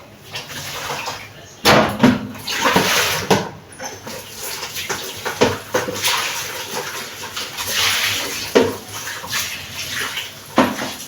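Water being poured out and sloshed while parts taken from a fridge are rinsed, in irregular splashing swishes with a few knocks.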